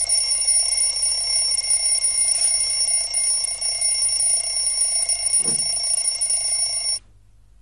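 Alarm clock ringing steadily, then cut off suddenly near the end.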